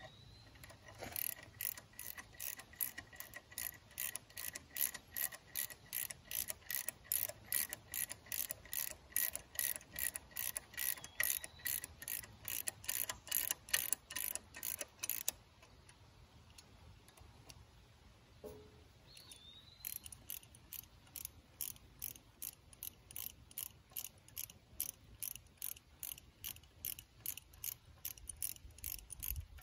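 Small socket ratchet clicking steadily, about three clicks a second, as bolts are run down. It stops for a few seconds around the middle, then starts again.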